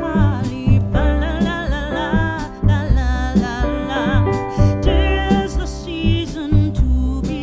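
Background song: a sung melody over a steady bass and beat.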